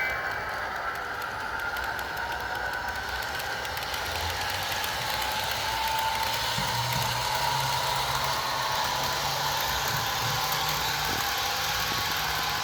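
HO scale Walthers F40PH model locomotive's DCC sound decoder playing a diesel engine running as the model gets under way, through the model's small speaker. The engine note strengthens about six and a half seconds in and steps up in pitch near the end.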